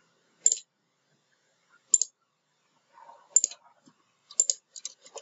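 Computer mouse clicking: single sharp clicks about a second and a half apart, then several quick clicks near the end.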